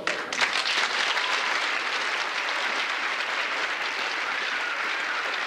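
Audience applauding steadily, a dense patter of many hands clapping; it starts suddenly and cuts off abruptly at the end.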